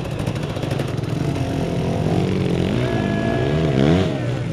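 Enduro motorcycle engine revving hard, its revs rising and falling in quick waves through the second half.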